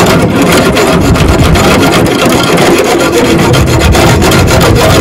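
A saw cutting through rusted steel on a Land Rover's tow bar fixing, rapid rasping strokes without a break, with a faint metallic ring in places.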